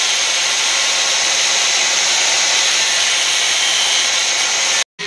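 Handheld angle grinder running under load, grinding the edge of a steel plate: a steady, loud grinding whine. It cuts off suddenly near the end.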